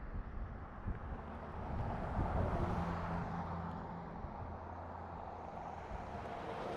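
A vehicle engine humming steadily, growing louder about two seconds in and easing off again, under a low rumble of wind on the microphone.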